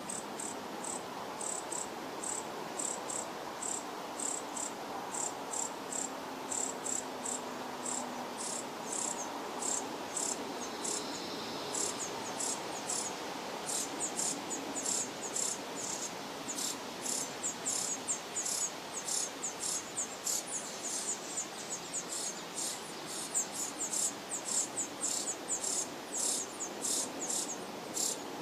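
House finch and brown-headed cowbird nestlings begging from a feeding adult house finch: thin, very high-pitched calls repeated rapidly, about three or four a second, growing denser near the end.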